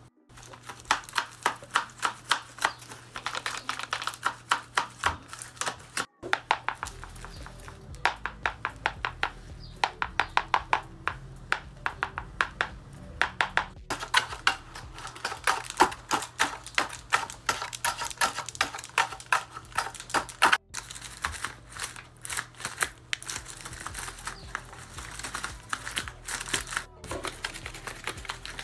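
Paper dragon puppet jaws snapping shut over and over: rapid papery clicks and clacks, several a second, in runs broken by short cuts.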